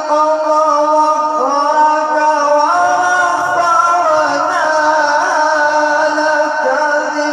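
A man's voice reciting the Quran in melodic tilawat style over a microphone and PA system, holding long drawn-out notes with ornamented glides in pitch. A steady low note sounds beneath and drops away near the end.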